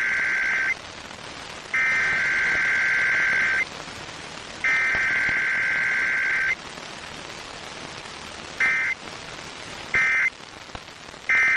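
Emergency Alert System SAME digital header: warbling two-tone data bursts, three long ones about a second apart (the first already under way), then three short end-of-message bursts about a second and a half apart, over a steady hiss. Header and end-of-message with no attention tone or voice message between them are typical of a Required Weekly Test.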